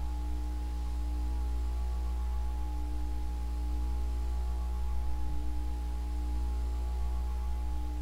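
Evergo "Banana Fan" 52-inch ceiling fan running, its motor humming a lot, with a faint steady whine above the hum. This fan is a really noisy one.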